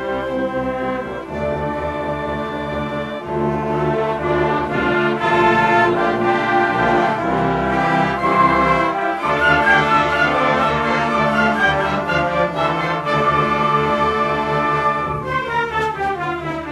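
Brass-led instrumental music played by a full ensemble of sustained chords, growing louder after the first few seconds, with a falling run of notes near the end.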